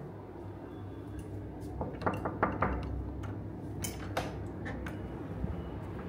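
Clicks and knocks of handling, a quick cluster of sharp knocks about two seconds in and a few single clicks later, as a door knob is turned and the door swung open, over a low steady room hum.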